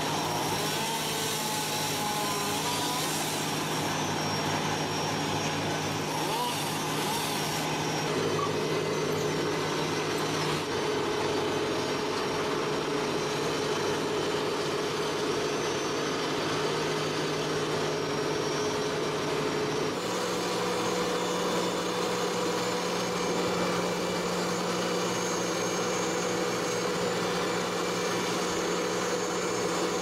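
Tracked excavator's diesel engine running steadily at an even pitch, the pitch stepping up slightly about two-thirds of the way through.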